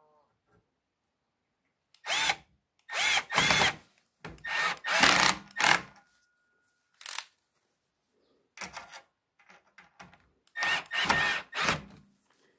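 Power drill driving screws into wooden 2x4 lumber in a series of short bursts, starting about two seconds in, the motor's whine rising and falling with each burst.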